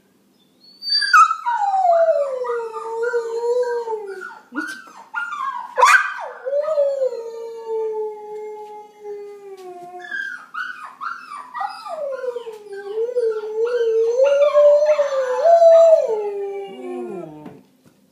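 German Shepherd-type dog howling in reply to other dog sounds: two long howls with a wavering pitch, each starting high and sliding down, the second ending in a falling note near the end.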